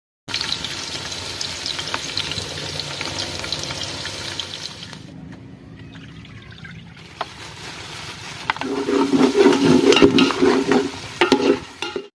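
Sliced onions sizzling and crackling in hot oil in an aluminium cooking pot. The sizzle fades about halfway through, and near the end a louder pitched hum with several steady tones comes in and breaks off a few times.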